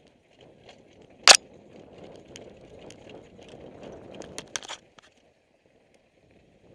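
Mountain bike riding down a dry dirt and rock trail: tyres crunching over dirt and stones, with rattling clicks from the bike. There is a sharp loud knock about a second in and a quick cluster of clicks around four and a half seconds, then the noise falls away almost to nothing for the last second and a half.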